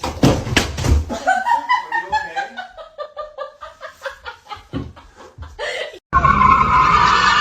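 A person laughing hard in quick repeated bursts, the pitch of the laughs sliding downward, for about six seconds. Near the end the sound cuts abruptly to a steady, noisier background with a droning tone.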